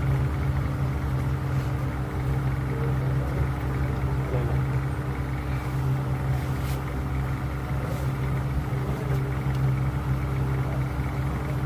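A steady low motor hum with a few faint clicks about seven and eight seconds in.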